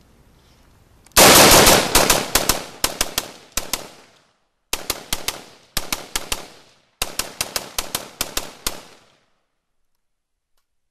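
Smith & Wesson M&P 15-T semi-automatic rifle in 5.56×45 fired in rapid succession, about seven shots a second. A long string starts about a second in, followed by three shorter quick strings, and the firing stops near the end.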